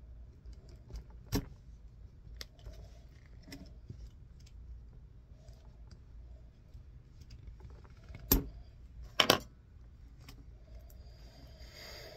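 Hands handling the stripped end of a shielded Cat 6 cable, untwisting and straightening its wires: faint ticks and rustles. Three sharp clicks stand out, one about a second in and two more about a second apart later on.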